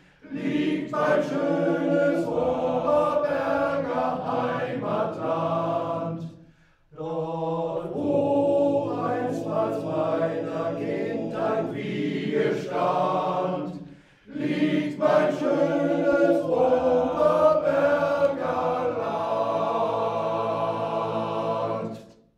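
Men's choir singing in parts without accompaniment, in three long phrases with short breaks about 7 and 14 seconds in, the last held chord dying away just before the end.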